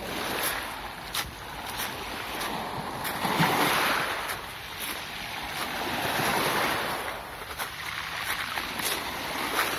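Small waves lapping and washing onto a pebble beach. The wash swells and eases twice, with light clicks throughout.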